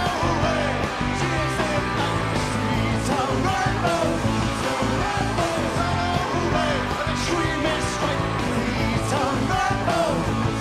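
Rock band playing live: electric guitars, bass and drums at a steady driving beat.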